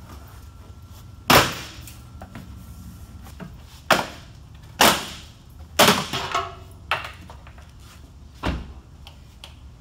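Plastic retaining clips of a Kia Soul's rocker panel cover snapping as the cover is ripped off by hand: about eight sharp cracks at irregular intervals, several close together in the middle. The clips are deliberately torn out rather than saved, because the rocker panel is to be replaced.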